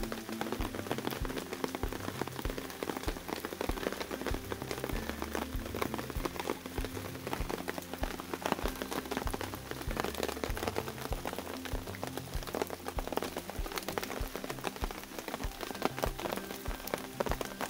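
Steady rain falling, with a dense patter of individual drops tapping. Faint background music with a low bass line runs underneath.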